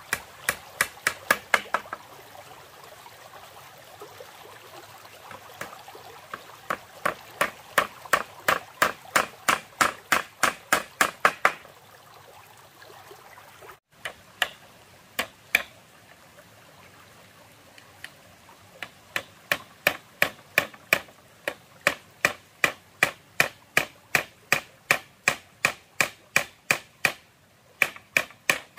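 Hammer driving nails into a bamboo gate panel: runs of quick, even strikes, about three a second, broken by short pauses. A stream runs steadily underneath.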